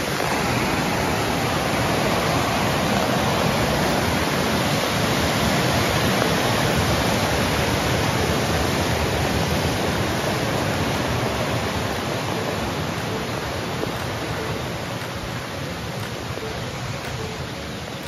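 Steady rush of water tumbling over a small cascade, fading gradually over the second half.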